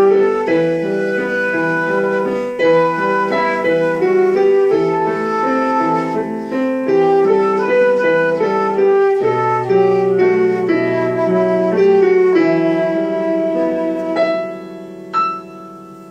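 Instrumental music led by piano, with a held melody line over chords. It winds down into a final chord that fades away over the last couple of seconds, with a single sharp click shortly before the end.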